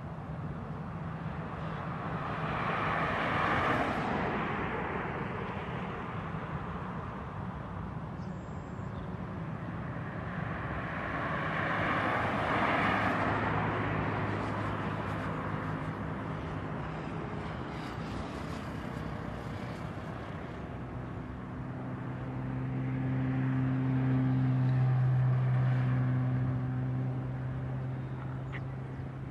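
Road vehicles passing close by, two of them swelling up and fading, over the steady distant hum of an Airbus A320's jet engines as it taxis. Near the end a louder low hum swells up and fades.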